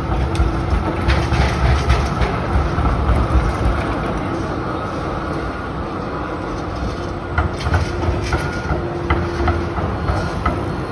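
B-class articulated Melbourne tram running along street track: a low rumble from the wheels, then a run of clicks and clunks as it passes close, rolling over rail joints and points.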